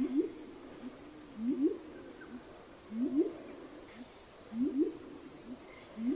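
Violaceous coucals calling: low, hollow hoots, each a quick pair of notes sweeping up in pitch, repeated evenly about every second and a half.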